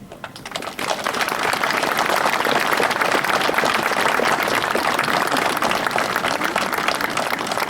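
Outdoor crowd applauding at the end of a speech: dense clapping that swells within the first second and holds steady.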